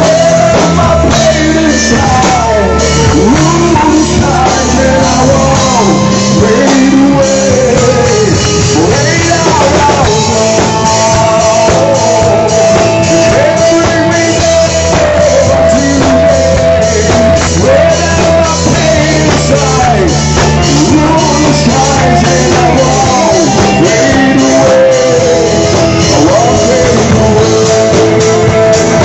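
A live rock band playing loud: electric guitar, bass and drum kit with constant cymbal hits, and a male voice singing.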